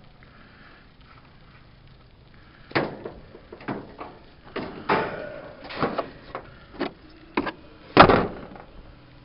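Irregular knocks and clunks of a hard plastic tool case and tools being handled on the metal top of a heat pump's outdoor unit. They start about three seconds in, and the loudest knock comes near the end.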